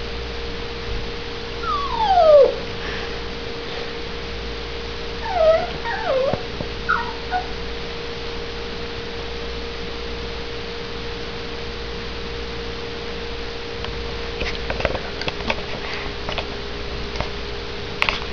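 Small dog whining: one long falling whine about two seconds in, then a few short whimpers, with scattered clicks and scuffles later on. A steady hum runs throughout.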